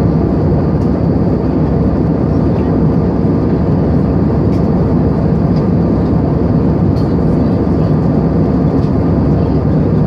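Jet airliner cabin noise in cruise: engines and rushing air make a steady, unchanging low rumble, heard from inside the passenger cabin.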